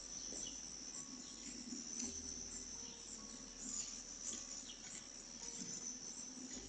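Crickets trilling steadily and faintly: a continuous high-pitched chirring, with a few faint low rustles underneath.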